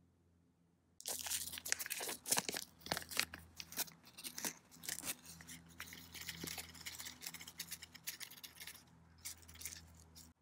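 Paper seed packet crinkling and being torn open: a dense run of crackling, rustling and tearing that starts about a second in and stops abruptly near the end.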